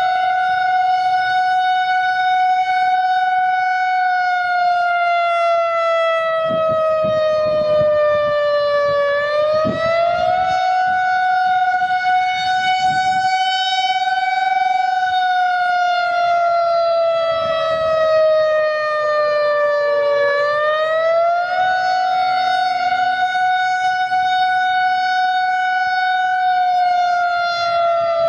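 Outdoor civil defense warning siren sounding the attack signal: a loud wail that rises quickly, holds its pitch for several seconds, then slides slowly down, repeating about every eleven seconds.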